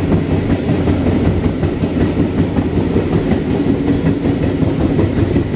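Train running along the track: a steady rumble of wheels on the rails.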